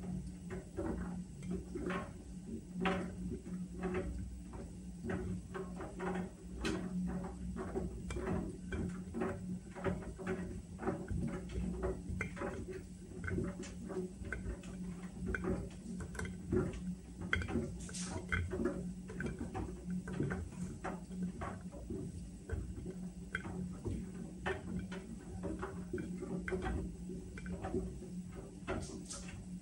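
Whirlpool washing machine running a Steam Refresh cycle: a steady low hum under frequent, irregular light clicks and taps.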